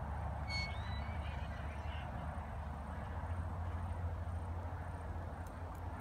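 Steady outdoor background noise with a strong low rumble and a brief high chirp about half a second in.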